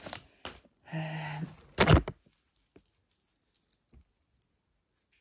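A short low hum about a second in, then a loud knock as a hand bumps the phone that is filming, followed by a few faint handling ticks.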